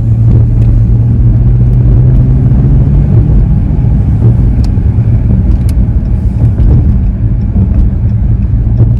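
Steady low drone of a moving car's engine and road noise, heard from inside the cabin.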